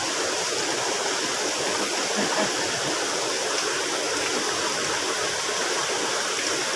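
Water of a small river running steadily, a constant rushing.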